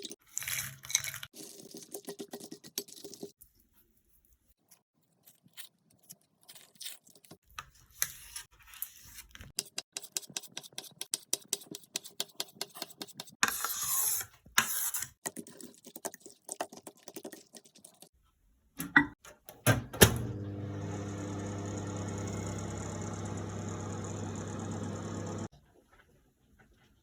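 Rapid clicking and tapping of a fork beating eggs and milk in a bowl, then a few loud clicks of the microwave door and buttons, followed by a steady microwave oven hum for about five seconds that cuts off abruptly.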